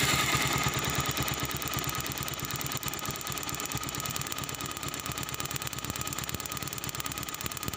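Motorcycle engine idling with a fast, even ticking as the spark from a plug lead held close to the cylinder head jumps the short gap. The steady spark shows the lead is getting proper ignition current at this distance.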